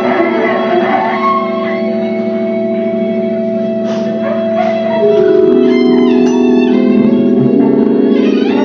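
A string trio playing long, held, droning tones. About five seconds in a denser cluster of low held notes comes in and the music grows louder, with short sliding high notes a little after.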